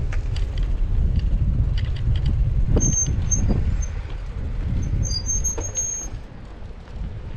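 Wind buffeting the microphone of a camera on a moving bicycle. Short high-pitched squeals come about three seconds in and again, longer, around five to six seconds in.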